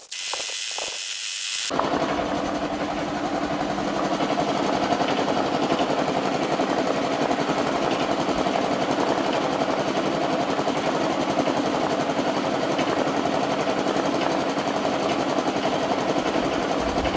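Compressed air from a blow gun blasting cleaner out of a motorcycle throttle body and its small parts: a high hiss for the first second or two, then a loud, steady, rattling rush of air.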